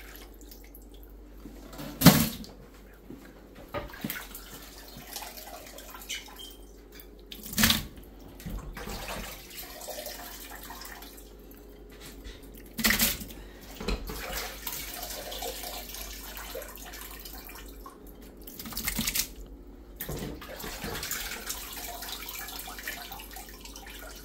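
Handfuls of wet beef tripe being squeezed and wrung out over a stainless steel pot in a sink, water splashing and dripping back into the pot. Four sharp knocks stand out, about five or six seconds apart, the first and loudest about two seconds in.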